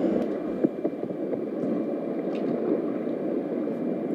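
Steady rushing of a whitewater river's current, with a few faint knocks.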